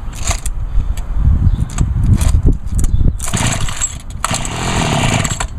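Homelite HT-21 hedge trimmer's small two-stroke engine being pull-started on choke after a carburetor rebuild: a few thuds of the recoil starter, then about three seconds in the engine fires and runs for about a second, twice, cutting out each time.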